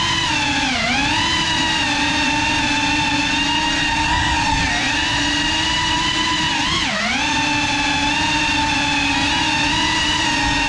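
Motors and propellers of a GEPRC CineLog35 cinewhoop FPV quadcopter whining steadily in flight. The pitch dips and climbs back up briefly about a second in, and again about seven seconds in.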